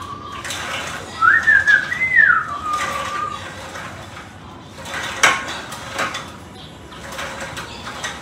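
A wavering high whistle, rising then falling over about two seconds, followed by sharp metal clinks from the cable machine's handle and weight stack, the loudest about five seconds in.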